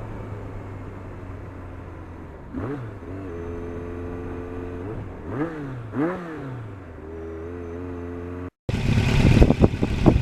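Motorcycle engine idling steadily, its throttle blipped three times: quick rises and falls in revs about two and a half, five and a half and six seconds in. Near the end the sound cuts off abruptly and gives way to a much louder, rough rushing noise.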